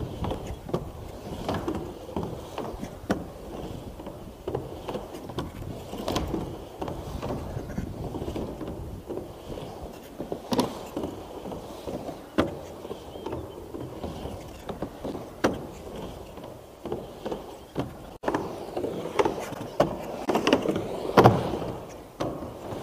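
Skateboard with a surfskate front truck rolling back and forth on a vert half-pipe: a steady wheel rumble with frequent sharp knocks and clacks. It gets louder and closer near the end.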